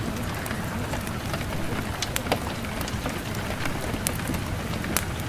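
Steady rain falling on a surface, an even hiss with scattered sharp drop ticks.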